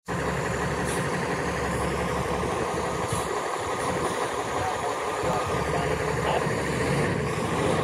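Fire engine's diesel engine idling steadily.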